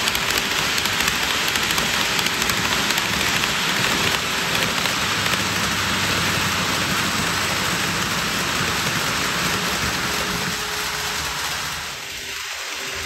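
N-gauge model train (KATO E235-1000 series, 15 cars) running on layout track: a steady rushing rattle of wheels on the rails, dipping briefly near the end.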